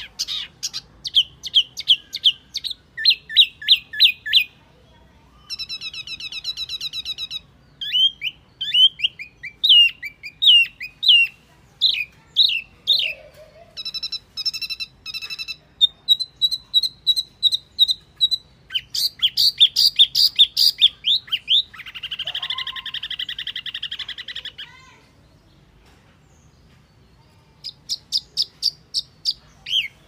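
Lure-call recording of the small babbler sold as the 'wambi mini': quick series of sharp, repeated chirps mixed with buzzy trills. The calling stops about 25 seconds in and resumes a couple of seconds later.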